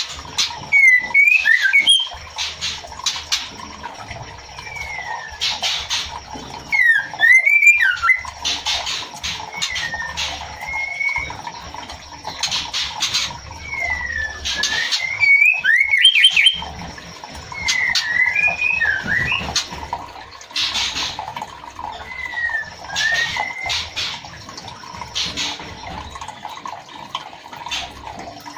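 Female white-rumped shama calling to the male: short whistled notes that slide up and down, repeated every second or two, mixed with short harsh, raspy notes, over a steady background hiss.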